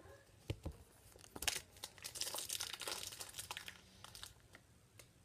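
Foil wrapper of a trading-card pack being crinkled and torn, a dense rustling from about two seconds in that fades after about three and a half seconds, with a few sharp clicks before it.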